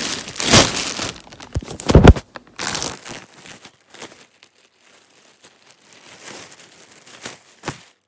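Plastic parcel packaging crinkling and rustling as it is handled and unwrapped. Loud rustles in the first three seconds, then softer, scattered crinkles and a short snap near the end.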